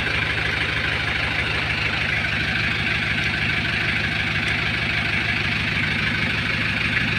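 Kia Bongo 3.0 diesel engine idling steadily, with an even, rapid low clatter.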